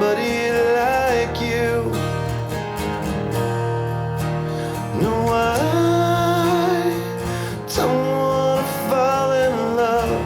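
Recorded music: a slow ballad led by guitar, with held, bending notes.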